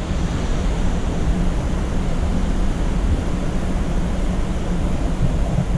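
Steady roar of Upper Mesa Falls, a 114-foot waterfall on the Henrys Fork: a constant rushing noise with a deep, uneven rumble underneath.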